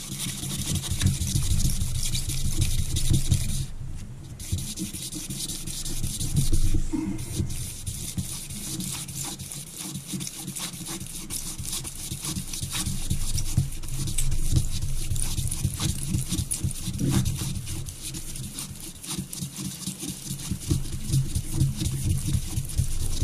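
Strip of wet-and-dry abrasive paper wrapped around a Rover 3.5-litre V8 crankshaft journal, worked rapidly back and forth by hand so that it rasps against the steel. This is a light polish to remove scoring marks from the journal.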